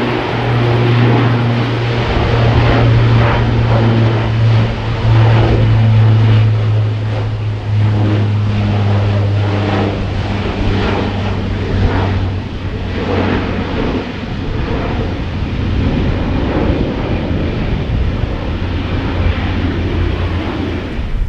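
Four-engine military turboprop aircraft running, with a steady low propeller drone over the rushing engine noise; the drone weakens after about twelve seconds.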